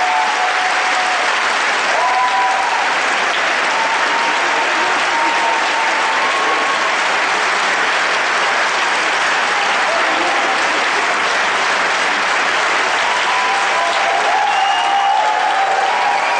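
A large theatre audience giving a standing ovation: dense, steady applause throughout, with a few brief pitched calls rising over it near the start and the end.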